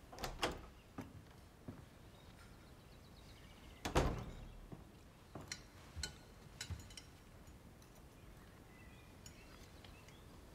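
Sparse clinks and knocks of cutlery and tableware in a quiet dining room, a few in the first two seconds and a small cluster around six seconds, with one heavier thud about four seconds in.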